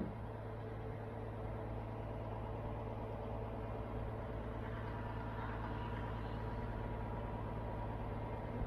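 Large mobile crane's engine running steadily, an even drone with no change in pitch, while it lifts a climber into a tree. A single sharp knock right at the start.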